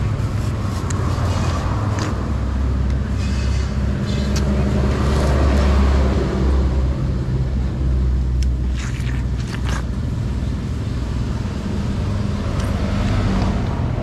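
Motor vehicle engine rumble from the road, swelling louder for a few seconds in the middle, with a few short clicks and knocks.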